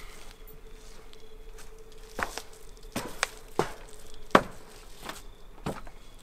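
Footsteps knocking on a hard floor as someone walks away: about six irregular steps starting about two seconds in, the loudest a little past four seconds, over a faint steady hum.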